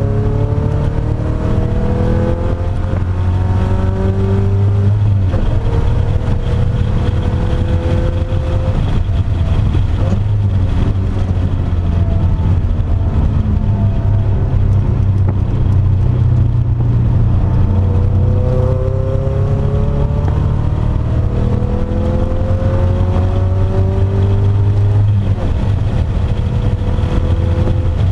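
GM Ecotec four-cylinder swapped into a Mazda Miata, heard from inside the cabin, accelerating hard with its pitch climbing in stages through the gears. The revs hold steadier through the middle, then climb again about two-thirds of the way in.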